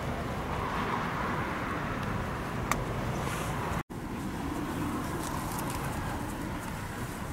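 Steady outdoor background noise, mostly low, like distant traffic, with one sharp click a little under three seconds in. The sound drops out for an instant at an edit cut just before four seconds in, then the same background carries on.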